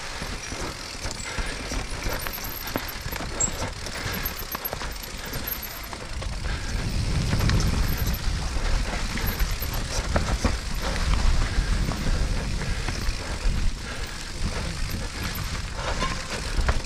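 Mountain bike descending a dirt trail: tyres rumbling over the ground, with frequent clicks and knocks of chain and suspension rattling, and wind rushing over the helmet-mounted camera. The rumble grows louder about seven seconds in.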